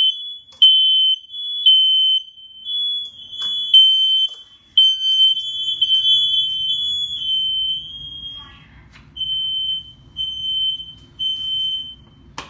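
Ceiling smoke alarm sounding its test alarm: a loud, shrill tone in repeated beeps. For the first several seconds a second, slightly different tone overlaps it. Near the end it gives three separate, evenly spaced beeps.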